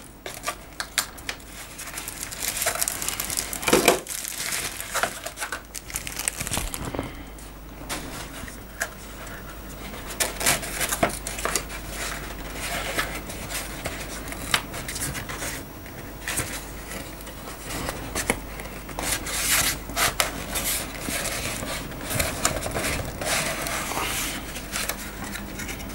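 Paper and plastic packaging rustling and crinkling as a torn postal mailer is pulled apart, then a cardboard box is handled and opened and its plastic bag crinkles, with scattered clicks and taps throughout.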